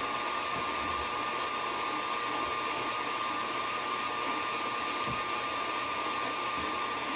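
KitchenAid tilt-head stand mixer running steadily, its motor giving a constant whine as it beats a runny mix of butter and condensed milk.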